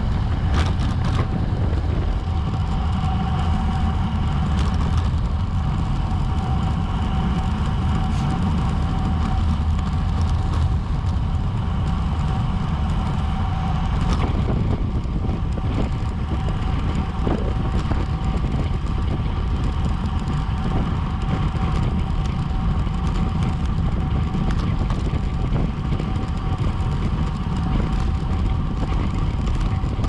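Wind rushing over a bike-mounted action camera's microphone at racing speed: a steady, heavy low rumble, with a faint steady whine and a few scattered clicks from the bike.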